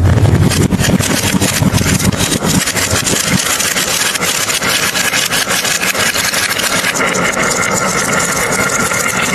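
Dozens of glass marbles rolling down a carved wooden wavy-groove slope, a dense rumble with constant clicking as they knock together and against the wood. The heavy rumble eases after about two and a half seconds into lighter rolling and clicks as the pack thins out.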